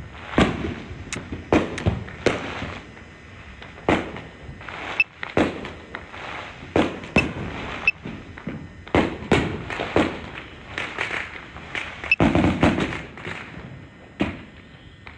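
Fireworks going off in many places at once: repeated sharp bangs, each trailing off in an echo, over a background of more distant pops and crackles, with a dense flurry of bangs about twelve seconds in.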